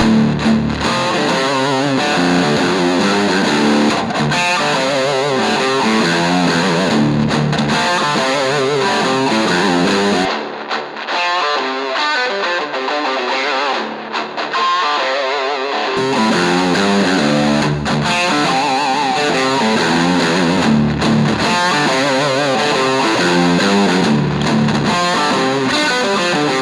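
Overdriven electric guitar playing a continuous distorted part. The low end drops out for several seconds midway, then comes back.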